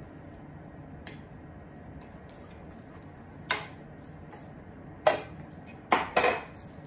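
Small round metal shoe-cream tins being handled: a faint click about a second in, then sharp metallic clinks as a tin is opened and its lid handled, the loudest three close together in the last two seconds.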